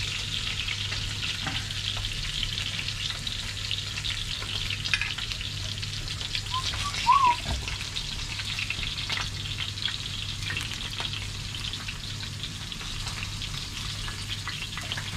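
Spanish mackerel pieces frying in oil in a cast-iron skillet, a steady crackling sizzle, with a metal utensil working in the pan as the pieces are lifted out. One brief sharp sound comes about halfway through.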